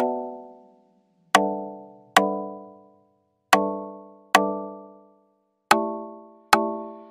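Music: seven chords struck one after another, mostly in pairs, each ringing out and fading away before the next.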